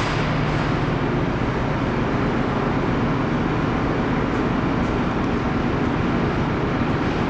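Steady machinery drone of the car ferry Esan 2000 inside its enclosed car deck: a dense, even rushing noise with a low hum underneath. A few faint ticks come midway.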